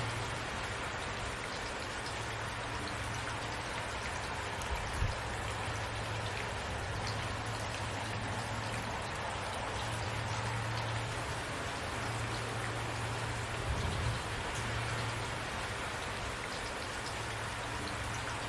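Steady rain falling, an even hiss with a low rumble underneath that comes and goes, and a couple of louder single drops hitting about five and fourteen seconds in.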